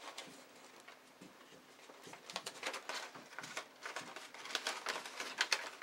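Stiff drafting-vellum pieces crackling and rustling as hands handle and fit them together; faint at first, then a run of quick crinkles from about two seconds in.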